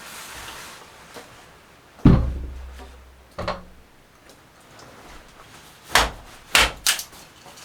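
Wooden thuds and knocks: one heavy thump about two seconds in that leaves a low ring, a lighter knock soon after, then three sharp knocks near the end.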